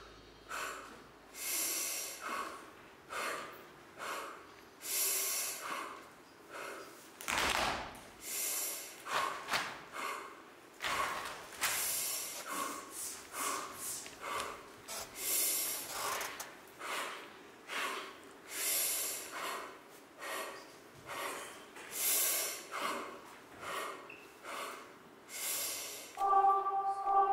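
Sharp, audible human breaths and exhales, one after another at roughly one a second and unevenly spaced, with a stronger one about seven seconds in. A held musical chord comes in near the end.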